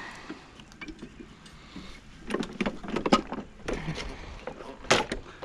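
Clicks and knocks of tools and small parts being handled, bunched about two to three seconds in, with one sharper knock near the end.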